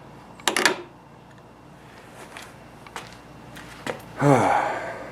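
Sharp clicks and knocks of tools or metal parts being handled, loudest about half a second in, with a few lighter clicks later. Near the end, a short vocal grunt or exhale that falls in pitch.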